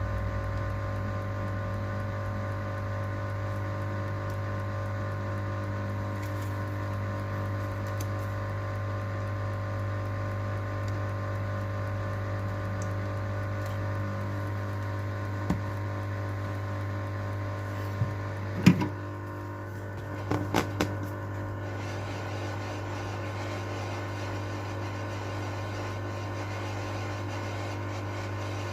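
Steady electrical machine hum with a few sharp clicks and taps, the loudest about two-thirds of the way in.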